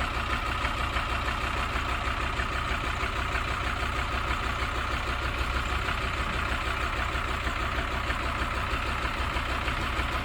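Tractor engine running steadily, with an even, unchanging note.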